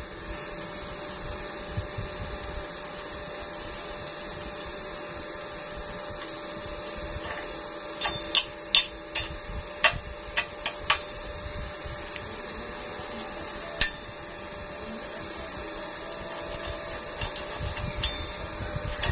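Chipping hammer striking a fresh weld to knock the slag off the welded steel tube: a quick run of about eight sharp metallic taps partway through, then one more tap a few seconds later, over a steady machine hum.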